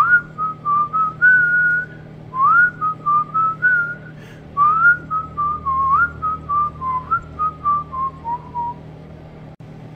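A man whistling a tune in three phrases, the last one drifting lower, over the steady hum of a microwave oven running.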